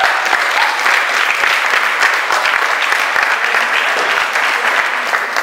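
An audience applauding: a dense, steady patter of many hands clapping.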